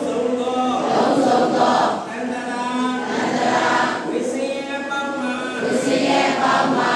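Group of voices chanting a Buddhist recitation together in unison, with long held notes broken into phrases every second or two.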